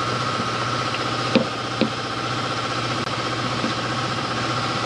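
Plastic side cover of a Polaris General UTV being pried off, with a sharp click about a second and a half in and a smaller one just after, over a steady idling-engine hum.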